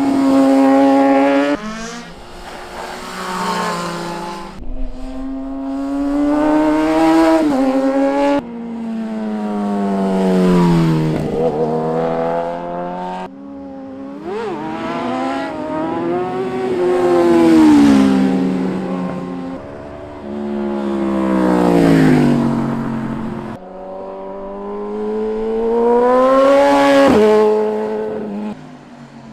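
Sport motorcycles passing one after another, about six passes, each engine swelling in and fading out with its pitch rising under throttle and dropping as it goes by. Several passes break off suddenly.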